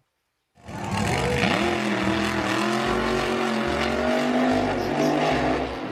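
A car engine sound that starts after a brief silence, rises in pitch about a second in, then runs steadily for about five seconds before cutting off near the end.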